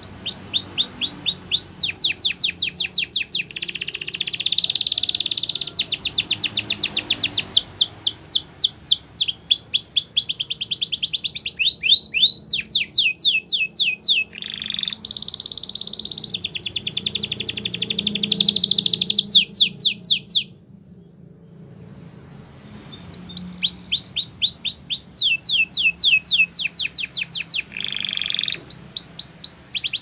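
Domestic canary singing a long song of fast trills, each a run of rapid repeated sweeping notes, shifting from one trill to the next. About two-thirds of the way through it stops for about two seconds, then starts again.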